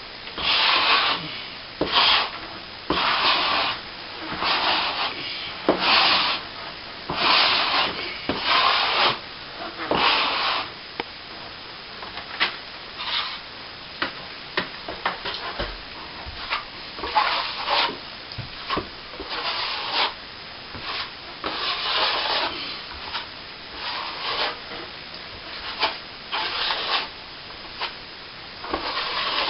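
Steel plastering trowel scraping back setting cornice cement on a plasterboard ceiling patch: a run of short scraping strokes, close together at first, sparser for a few seconds in the middle, then steady again.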